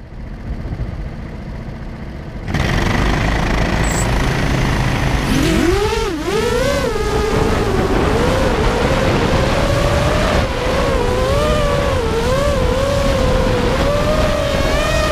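FPV racing quadcopter's electric motors whining: the pitch climbs steeply about five seconds in as the drone takes off, then keeps wavering up and down with the throttle. Under it runs a loud steady rushing noise, which starts suddenly a couple of seconds in.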